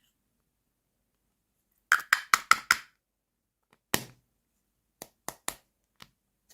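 Small hard miniature toy kitchen pieces clicking and clinking as they are handled and set down: a quick run of five taps about two seconds in, a heavier knock a second later, then three lighter taps.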